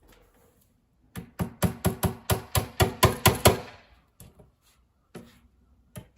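Hammer driving small nails into a furniture back panel: a quick run of about a dozen strikes, roughly four a second, then a few lighter single taps.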